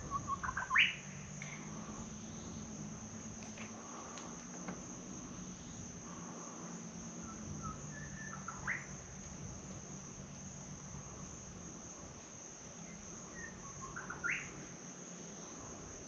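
Steady high-pitched insect drone, with a bird giving a short rising call three times: about a second in, around the middle, and near the end. A low steady hum sits underneath in the first half.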